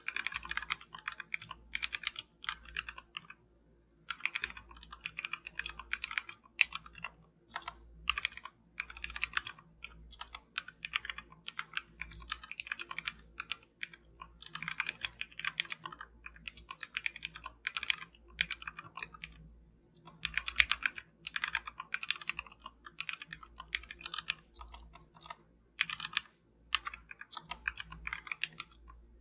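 Typing on a Royal Kludge RK71 mechanical keyboard fitted with XDA-profile keycaps: fast runs of key clacks, broken by short pauses every few seconds.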